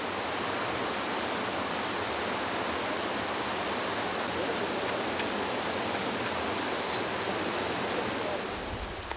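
Shallow mountain river rushing steadily over stones and rocks, an even continuous water noise that eases slightly near the end.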